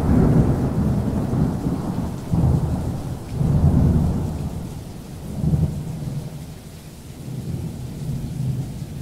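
Thunderstorm: rolling thunder with rain. Low rumbling swells up several times, strongest near the start and about two and a half, three and a half and five and a half seconds in, then fades toward the end.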